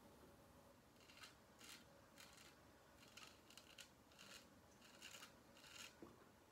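Dubl Duck Goldedge straight razor scraping through one day's stubble on a lathered chin and lip: a series of short, faint rasping strokes, roughly two a second.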